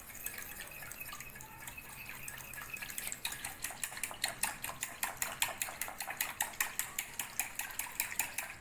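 A small whisk stirring a thin liquid of warm milk, water, sugar and yeast in a glass bowl. The liquid swishes while the whisk clicks rapidly against the glass, the clicking growing louder and more rhythmic about three seconds in.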